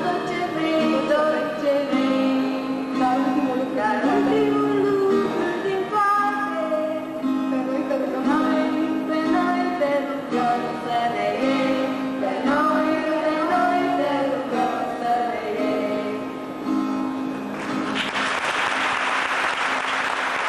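A female voice singing to an acoustic guitar. Near the end the song stops and the audience applauds.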